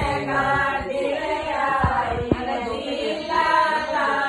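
A group of women singing a Hindu devotional bhajan together in long, held phrases, with a few brief low knocks.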